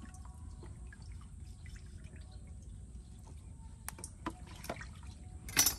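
Raw duck being handled in water: faint drips and small splashes, a few light knocks, then one louder splash near the end.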